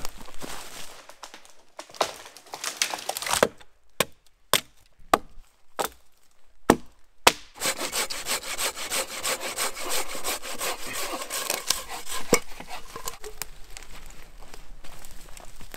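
Hand saw cutting through dead logs, with fast, steady back-and-forth strokes. About three and a half seconds in the sawing stops for a few seconds of separate sharp knocks, then it picks up again and runs steadily until just before the end.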